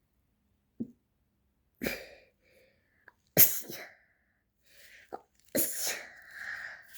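A young girl sneezing in an allergy sneezing fit: three sneezes about a second and a half to two seconds apart, the middle one the loudest, with short breaths between.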